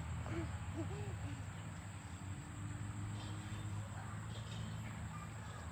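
Farm background sound: a steady low hum, with a few faint short rising-and-falling chirps in the first second and a half.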